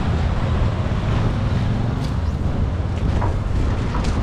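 Steady low rumble of outdoor street background noise, with a few faint clicks and taps.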